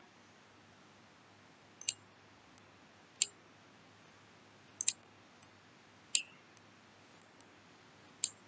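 Computer mouse clicking: five separate sharp clicks spread a second or two apart, one of them a quick double click, over a faint steady hum.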